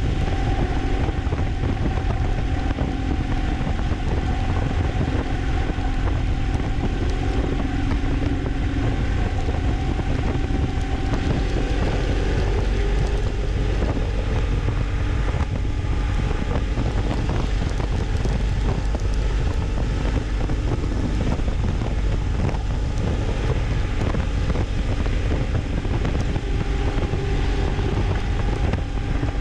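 Vehicle engine running steadily at cruising speed, heavily mixed with wind buffeting on the action camera's microphone.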